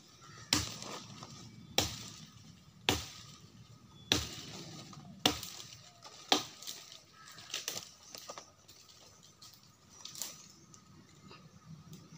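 Soil being slapped and packed by hand, with a plastic nursery bag handled: sharp crunching slaps about once a second for the first six seconds or so, then a few fainter ones.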